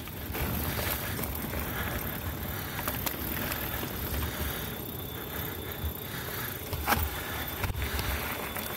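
Specialized Stumpjumper mountain bike rolling along a dirt singletrack: steady tyre noise over dirt and dry leaves, with bumps and rattles from the bike and a sharp knock about seven seconds in.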